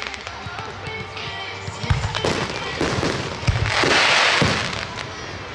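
Aerial fireworks shells bursting, with sharp bangs starting about two seconds in and a few more over the next second and a half. They are followed by a long crackling hiss of the shells' stars for about a second and a half.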